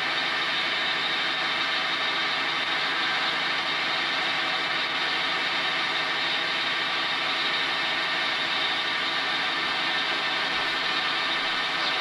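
An engine-driven machine running steadily, a constant drone that does not change in pitch or loudness.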